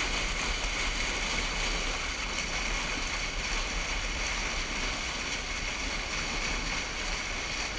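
Water spilling over a low dam's spillway: a steady, unbroken rush of whitewater.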